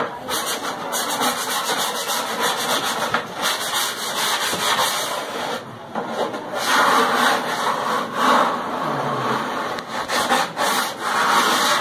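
Hand sanding block rubbing back and forth along the edge of a laminated board cabinet panel, a scratchy scrubbing in repeated strokes with brief pauses about six and eight seconds in.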